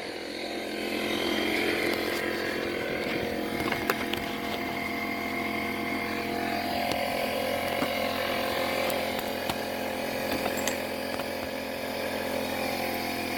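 Air compressor running steadily, with a few light clicks over it.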